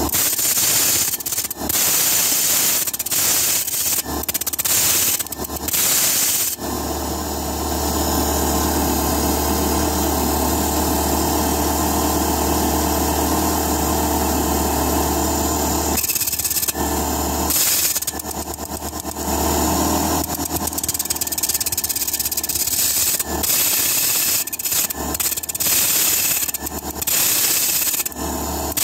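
Gemstone in a dop being ground on the spinning metal lap of a faceting machine: a harsh scraping hiss that starts and stops several times as the stone is set down and lifted, with a long unbroken stretch in the middle where a low hum runs under it.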